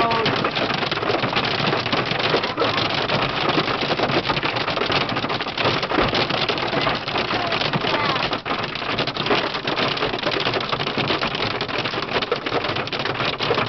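Hail and heavy rain pelting a car's roof and windshield, heard from inside the cabin: a dense, unbroken clatter of hard impacts over a steady roar of rain.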